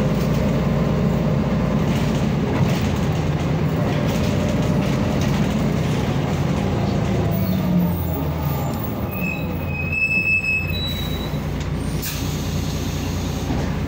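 Mercedes-Benz OM447hLA six-cylinder diesel of an O405N2 city bus droning steadily, heard from inside the passenger cabin while the bus drives slowly. About nine seconds in, a high-pitched squeal lasts about two seconds.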